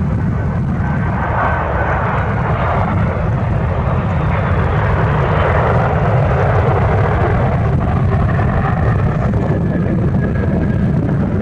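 Boeing 767-300ER airliner's jet engines running steadily as it comes in to land, with a faint high whine over the noise. Heavy wind rumble on the microphone sits underneath.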